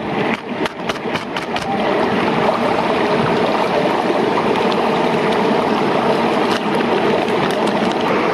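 Steady rush of a waterfall's falling water, with a few sharp clicks in the first couple of seconds.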